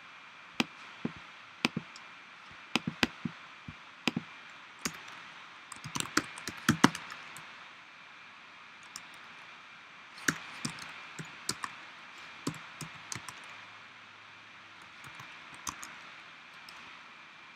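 Computer keyboard keys being pressed: scattered single clicks and short quick runs of typing, busiest about six seconds in and again about ten seconds in, over a faint steady hiss.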